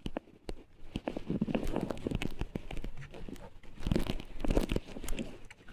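Irregular rustling, crunching and knocking close to the microphone: handling noise from a phone strapped to the body, its microphone rubbing against clothing as the wearer moves.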